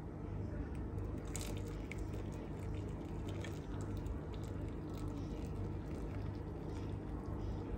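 A thin stream of strawberry-juice gelatin mixture poured from a small steel saucepan into a bowl of cut strawberries and pear, trickling and dripping, over a steady low hum.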